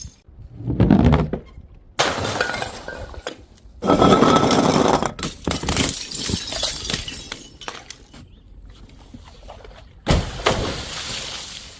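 Glass bottles breaking one after another: several separate smashes, each starting suddenly and dying away before the next, the loudest near 4 seconds in.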